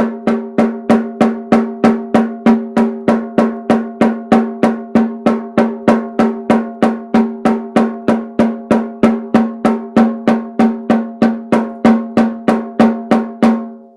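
13-inch handmade frame drum with a cowhide head on a cedar frame, struck in a steady beat of about three strokes a second. Each stroke rings with a clear low pitch, and the playing stops shortly before the end.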